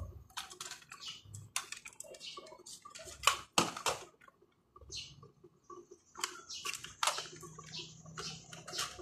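Plastic cassette tape cases clicking and clattering as they are picked up and shuffled on a table: a scatter of faint, short clicks, with a few louder knocks near the middle.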